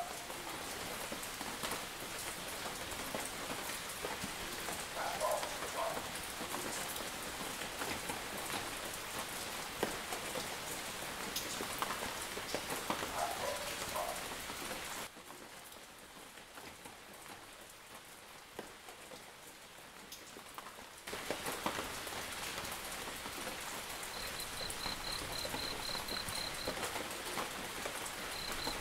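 Rain falling steadily on foliage and wet paving, with individual drops ticking. The rain drops in level for several seconds midway, and near the end a rapid, high, pulsing chirp starts up.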